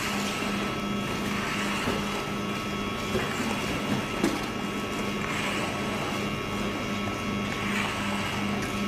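A steady machine hum that pulses rapidly and evenly, with soft swishing strokes from squeegees spreading wet resurfacing coating over a concrete floor every couple of seconds.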